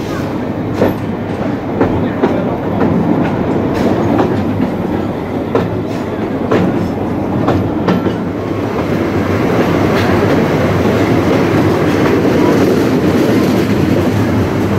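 Narrow-gauge steam train running, heard from a wagon within the train: a steady rumble, with the wheels clicking over rail joints at irregular intervals in the first half, and the rumble growing fuller and louder in the second half.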